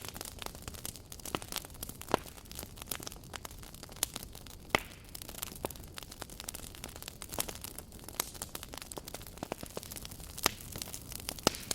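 Wood fire burning, with irregular sharp pops and crackles over a steady low rumble, a few louder snaps among them.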